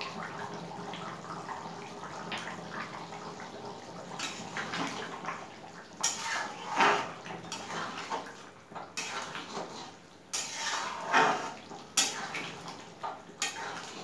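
A metal ladle scraping and clinking against an aluminium kadai as thick chicken and potato curry is stirred. Starts about four seconds in with irregular scrapes and sharp clinks, over a steady hiss.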